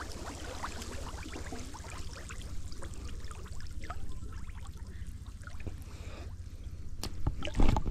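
Canal water lapping and trickling at a reedy bank, with many small ticks and light splashes over a steady low rumble. There is louder splashing near the end.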